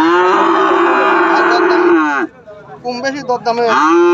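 A heifer mooing: one long, steady moo of about two seconds, then a second moo begins near the end.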